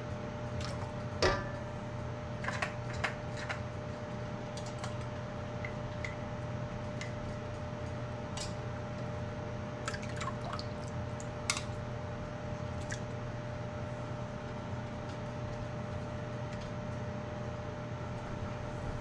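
Light syrup ladled from a metal ladle into glass jars of packed peaches. There is dripping and pouring, with a few sharp clinks of the ladle against the jars; the loudest comes about a second in and a cluster falls around ten to twelve seconds. A steady hum runs underneath.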